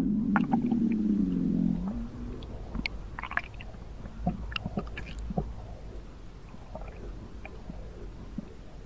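A long, wavering fart sound that fades out about two seconds in, followed by scattered faint clicks.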